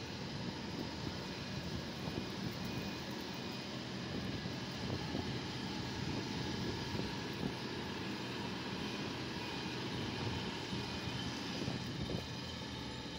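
Steady low rumble of city street traffic, with a faint high beep repeating in the background.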